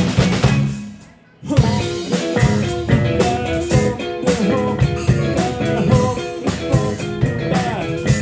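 Live funk-rock band playing an instrumental passage: electric guitars, bass guitar and drum kit. The music stops about a second in, then the whole band comes back in together half a second later.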